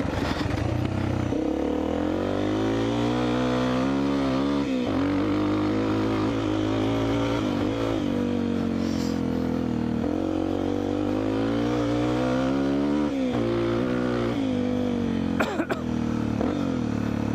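Motocross motorcycle engine revving hard under throttle, its pitch climbing and then falling sharply about five seconds in and again near thirteen seconds, with smaller dips between.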